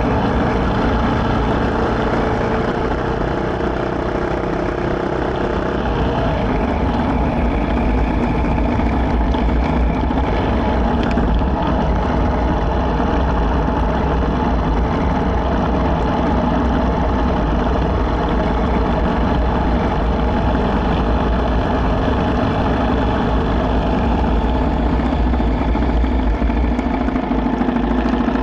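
Yamaha MT-125's single-cylinder four-stroke engine running steadily while the bike is ridden along a gravel road, heard from the bike itself with steady road and wind noise mixed in.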